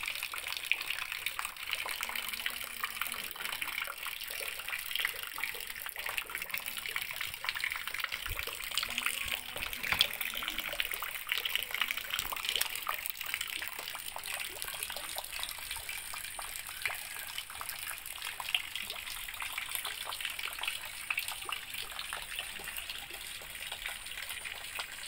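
Steady rain falling: a continuous hiss thick with the patter of many small drops.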